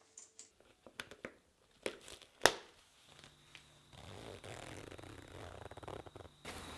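Motocross boot buckles clicking shut: a few sharp clicks, the loudest about two and a half seconds in. Then a jacket zipper is pulled up with a rasping run of fine ticks lasting a couple of seconds.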